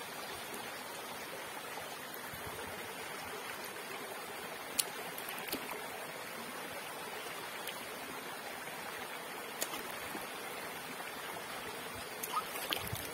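Shallow stream running over rocks: a steady rush of water. Two sharp clicks about five seconds apart, and a few lighter ticks near the end.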